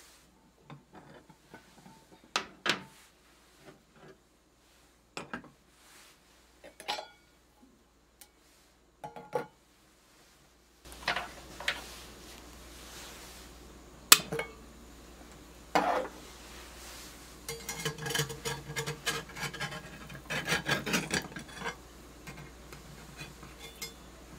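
White enamel containers being set on and lifted off small cast-iron skillets as lids, giving scattered clinks and knocks of enamel on iron, then a denser run of clatter as the skillets and pancakes are handled. A steady low hiss comes in about halfway.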